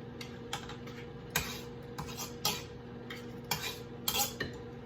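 A utensil scraping pound-cake batter off a mixing bowl and beater: a string of short scrapes and taps, a few of them longer strokes, over a faint steady hum.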